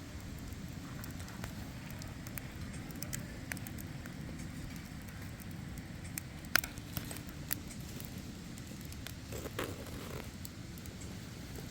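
Wood fire crackling, with scattered sharp pops over a low steady rumble; a few louder pops come about midway and near the end.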